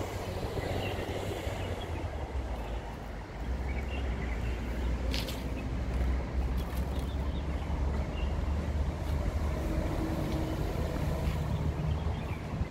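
Outdoor ambience: a low, steady rumble that grows a little stronger about three seconds in, with a single brief click about five seconds in.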